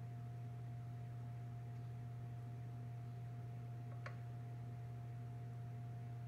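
Steady low hum with a thin, steady higher tone above it, and one faint click about four seconds in.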